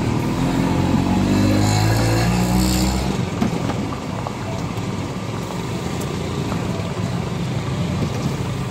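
Gathiya deep-frying in a wide pan of hot oil, sizzling and crackling steadily. A motor vehicle engine runs close by and ends abruptly about three seconds in.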